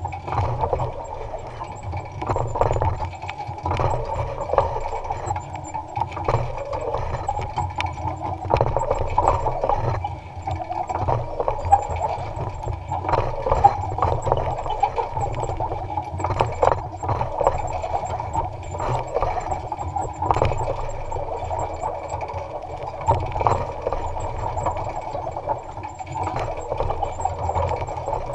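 Electric-powered Allis-Chalmers Model G tractor working a row with a basket weeder: a steady running hum with irregular rattling and clicking throughout.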